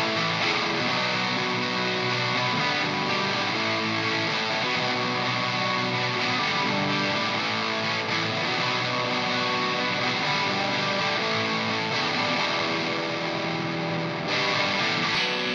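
Les Paul electric guitar played through a cranked Vox AC30 amplifier into a 4x12 cabinet loaded with Celestion V30 speakers, heard as recorded close on the cabinet by an Extinct Audio BM9 Black Ops ribbon microphone and an SM57. Notes and chords change continuously.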